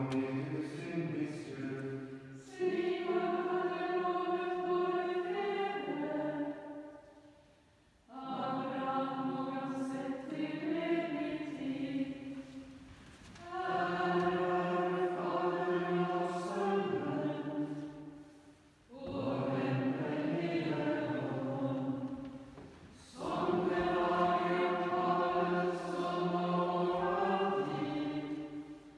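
Dominican friars' choir chanting vespers: sung phrases of a few seconds each on steady, held pitches, separated by short breaks for breath.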